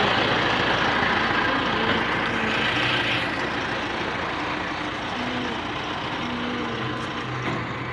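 Diesel engine of a Mahindra Novo tractor running steadily, a continuous low rumble.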